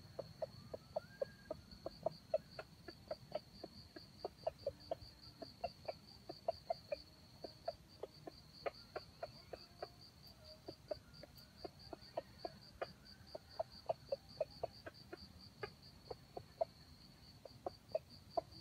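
Red junglefowl clucking: a long, unbroken run of short low clucks, several a second. Behind it an insect trills steadily at a high pitch.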